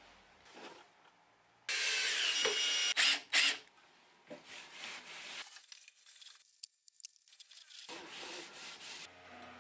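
Cloth wiping oil finish onto wooden rails, a soft rubbing in short stretches with a pause of a couple of seconds between them. The loudest sound comes about two seconds in: a loud rushing noise lasting about a second, followed by two sharp knocks.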